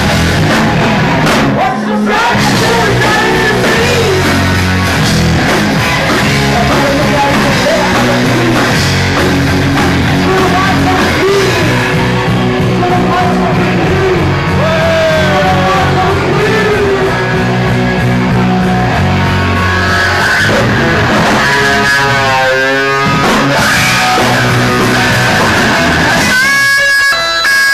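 Live rock band playing loud: a female singer's vocal over electric guitar, bass and drums, recorded close to the stage so the sound overloads and distorts. A wavering high note comes in about three-quarters of the way through.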